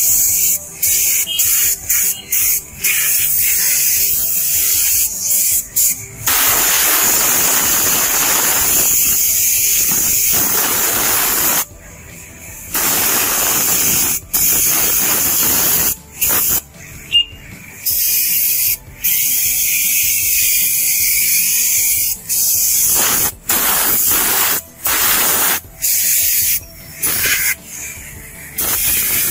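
Air-fed siphon spray gun with a red canister hissing as it blasts a fine mist onto a motorcycle. The hiss comes in long blasts that cut off sharply and restart, many times over, with one unbroken stretch of several seconds about a quarter of the way through.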